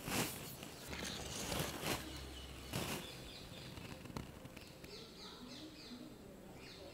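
Wire whisk stirring thick chocolate cake batter in a steel bowl: a few wet swishes in the first three seconds, then quieter. Faint bird chirps in the second half.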